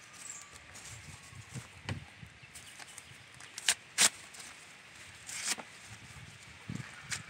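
Sheets of waste paper being torn by hand, with paper rustling: two short sharp rips a little past halfway and a longer rip about three quarters of the way through.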